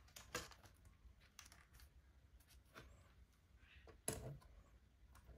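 Faint clicks of plastic LEGO pieces being handled as a plate is pressed onto the model plane, with a louder knock about four seconds in as the model is set down on a wooden table.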